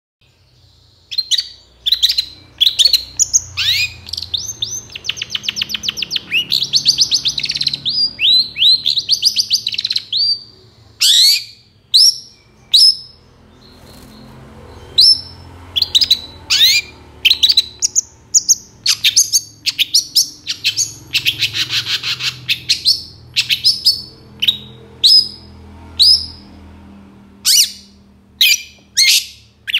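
Long-tailed shrike (cendet) calling energetically: a long run of sharp, short high notes that starts about a second in, twice broken into fast rattling trills, with a brief lull partway through.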